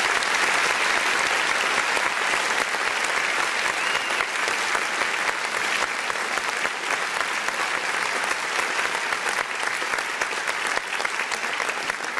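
A crowd applauding: dense, steady clapping.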